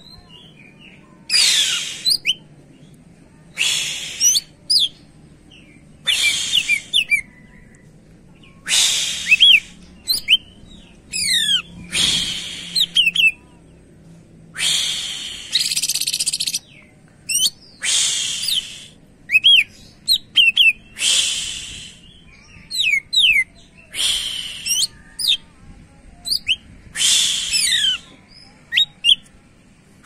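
Male cucak ijo (greater green leafbird) in full song. Loud, harsh, rapid bursts come every one to three seconds, with short sliding whistles between them.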